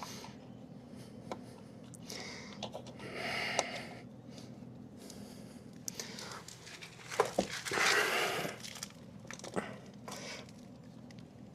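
Faint clicks and light handling noises as the gear-lube fill screw is threaded back into an outboard's lower unit. There are two longer breathy rushes, about 3 seconds in and again near 8 seconds.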